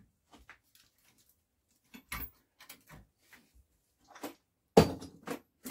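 Scattered knocks and clinks of hand tools being handled on a workbench: a cordless drill set down and metal sockets picked over, with the loudest knock near the end.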